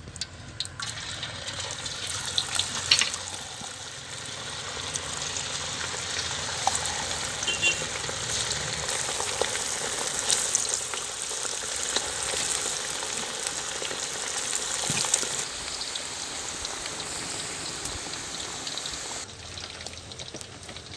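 Battered chicken pieces frying in hot sesame oil in a kadai: a steady sizzle that builds about a second in and holds, with a few sharp clicks along the way.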